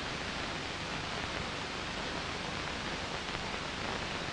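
Steady hiss of an old film soundtrack, with no other sound.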